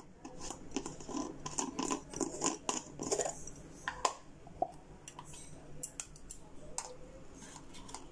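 Plastic kimchi jar being opened: its screw cap is twisted off with a run of crackling clicks over the first four seconds, sharpest near the end of that run, then a few scattered clicks and taps.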